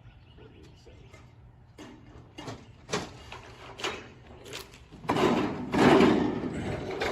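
Seamless gutter machine roll-forming a long metal gutter, with scattered knocks and rattles, then running much louder from about five seconds in.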